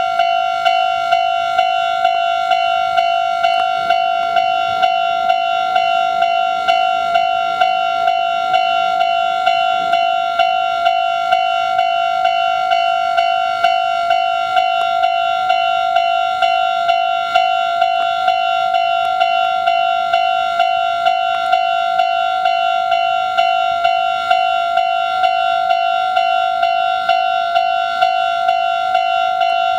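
Japanese railway level-crossing warning bell ringing steadily, a repeated electronic clanging tone at about two strikes a second, the signal that a train is approaching.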